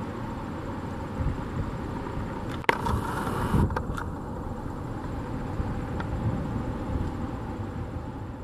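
Airbus A380's four Engine Alliance GP7270 turbofans at takeoff power during climb-out, a steady deep jet rumble. A sharp click with a brief hiss comes about two and a half seconds in.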